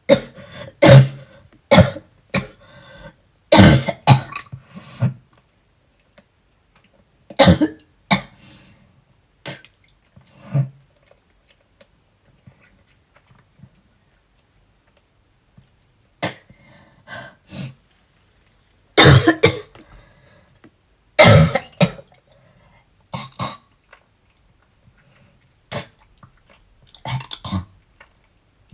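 A woman coughing in repeated fits of short, harsh coughs and throat clearing, with quiet pauses between bouts; the strongest bouts come near the start and a little past the middle. It is a persistent cough from asthma and a cold that she cannot stop.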